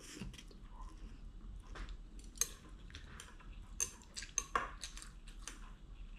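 Eating utensils clinking and scraping against a bowl while instant noodles are eaten: a scatter of light clicks, with a few brief ringing clinks near the middle.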